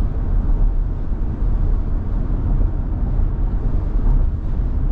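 Steady low rumble of tyre and wind noise from a Tesla Model Y moving at road speed, with no distinct events.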